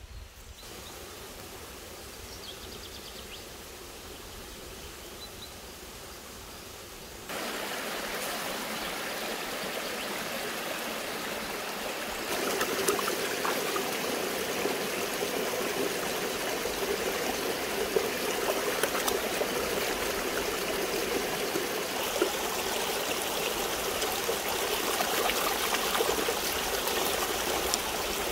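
Shallow mountain stream rushing over rocks, with splashes and trickles as hornbeam leaves are rinsed in it by hand. The water gets louder in steps, about seven seconds in and again about twelve seconds in.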